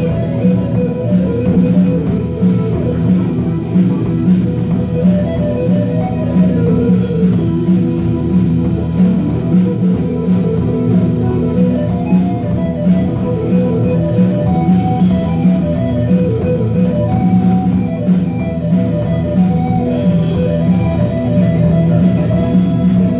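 Live rock band playing a blues song on electric guitars, bass guitar and drum kit.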